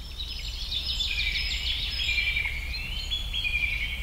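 Birds calling in forest ambience: high, repeated calls that step up and down in pitch, over a low steady hum.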